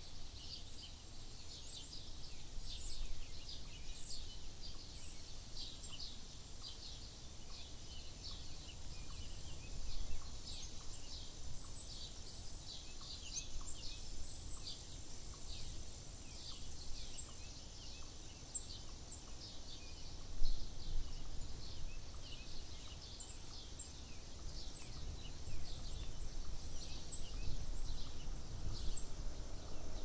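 Birdsong: many short, quick chirps repeated rapidly and densely, over a steady low rumble, with one brief louder thump in the rumble about two-thirds of the way through.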